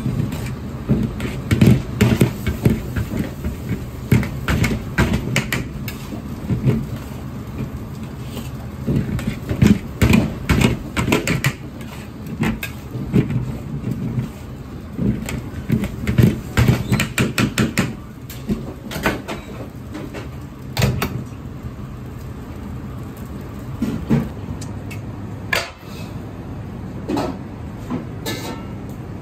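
Spaghetti being stir-fried in a carbon-steel wok over a restaurant gas wok burner: the burner runs with a steady low rumble while a utensil scrapes and clanks against the wok again and again.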